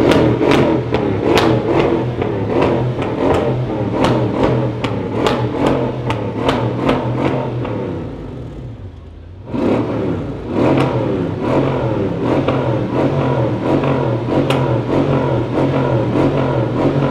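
Mercedes CLS63 AMG BiTurbo's twin-turbo V8 running steadily, its exhaust crackling and popping several times a second under a pops-and-crackles remap. The sound falls away about eight seconds in and comes back sharply a second and a half later.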